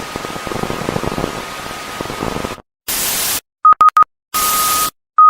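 Emergency-alert broadcast audio: hiss of static carrying a faint steady electronic tone, cut off after about two and a half seconds. Then comes a choppy end sequence: a short burst of static, three quick beeps, another stretch of static with the tone, and a loud beep starting at the very end.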